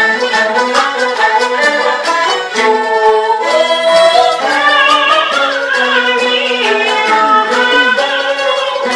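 Peking opera accompaniment: a jinghu fiddle plays a bowed melodic passage with slides over a lower sustained line, with sharp clicks scattered through.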